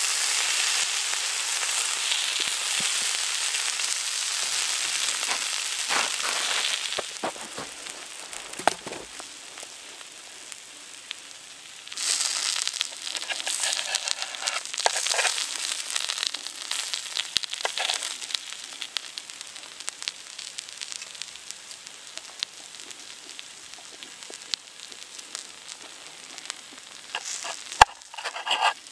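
Vegetables sizzling on a hot slate cooking stone, loudest for the first several seconds and then quieter, with small clicks and scrapes of a knife and fork cutting against the stone.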